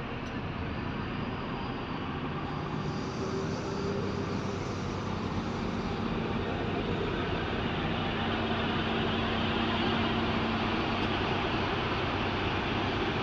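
Steady hum of a coach bus running, heard inside the passenger cabin, with a few low tones that come and go.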